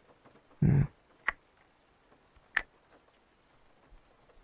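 A man's short, soft hum close to the microphone, then two sharp little clicks a little over a second apart.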